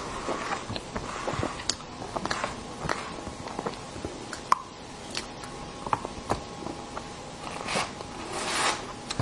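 Close-miked mouth sounds of eating soft whipped-cream cake, with scattered sharp clicks and scrapes of a metal knife and fork against the cake board; two longer scraping or rustling noises come near the end.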